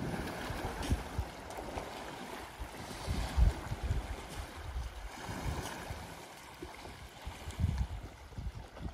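Muddy waterhole water sloshing as an African elephant lies and shifts its body in it, with irregular low thumps of wind gusting on the microphone.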